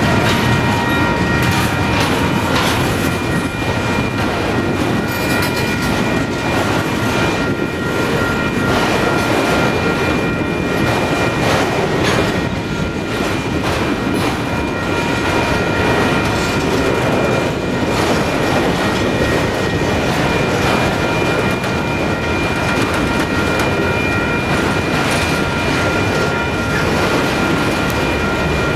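Freight train of autorack cars rolling steadily past, a continuous rumble with the clickety-clack of steel wheels over the rail joints, and steady high-pitched tones running underneath.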